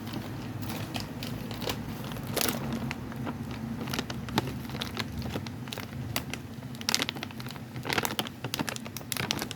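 Irregular crackling, clicking and rustling handling noise over a low steady hum, with denser clusters of clicks about seven and eight seconds in.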